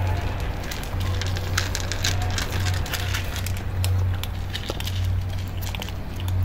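Kittens crunching dry kibble: a stream of small, crisp crackles and clicks, over a low hum that swells and fades every half second or so.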